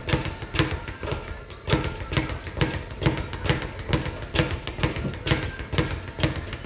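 Speed bag being punched in a fast, steady rhythm, each strike knocking against the rebound platform, with music playing along.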